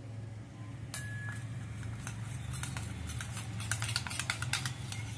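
A metal spoon stirring powdered milk into hot water in a stainless steel bowl, clinking against the bowl in quick, irregular ticks from about two seconds in, over a steady low hum.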